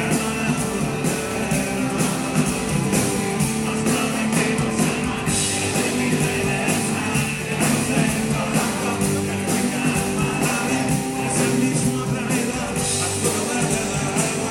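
Rock band playing live, electric guitars and a drum kit keeping a steady beat.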